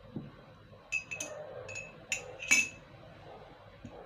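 A glass cup clinking: about six light, ringing taps between one and two and a half seconds in, the last the loudest.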